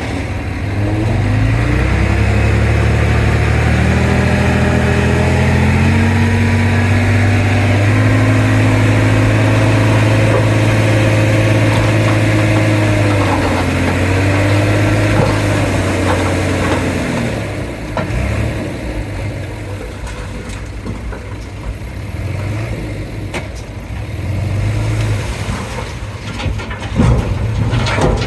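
Komatsu D31P bulldozer's diesel engine revving up about a second in and holding at high revs under work, its pitch climbing in steps and dipping briefly in the middle, then dropping back to a lower, uneven run for the last third.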